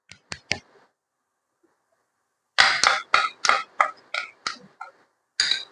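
A spoon clicking, tapping and scraping against a bowl as cornflour is spooned over marinating chicken legs. There are three quick clicks at the start, then after a gap a run of about a dozen sharp taps, and one more near the end.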